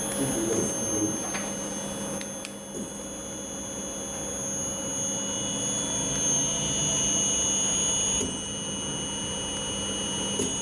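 Steady electrical hum with several constant high-pitched whining tones from powered servo-drive test equipment, with a couple of faint clicks.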